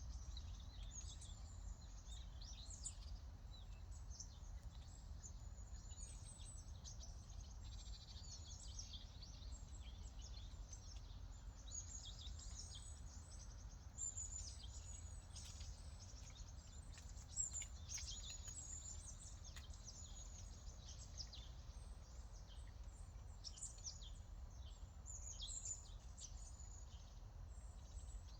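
Many small songbirds chirping and twittering at once, quick high calls overlapping without pause, over a low steady rumble.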